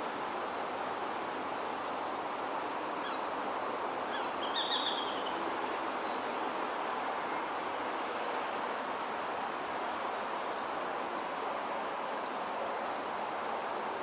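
Japanese sparrowhawk calling, the calls given around a courtship food pass: a short run of high, falling notes about three to five seconds in, with fainter high calls after. Under it runs a steady hiss of wind-like background noise.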